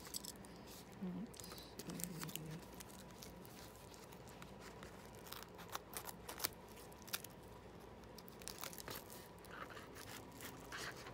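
A small package being opened by hand: faint, irregular tearing and crinkling of packaging, with scattered sharp clicks, the loudest about six and a half seconds in.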